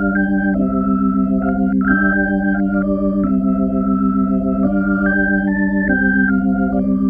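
Organ music: a melody moving note by note over a sustained low note, in the manner of silent-film accompaniment.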